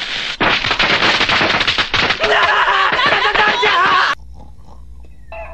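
Cartoon sound effect of a bundle of firecrackers going off, a rapid dense crackle of pops for about four seconds that cuts off suddenly. Voices cry out over its second half, and a rooster crow starts just at the end.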